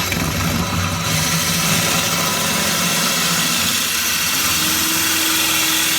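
Handheld electric drill with a diamond hollow core bit switched on and grinding steadily into glass under running water; a steady tone comes in a little past two-thirds through.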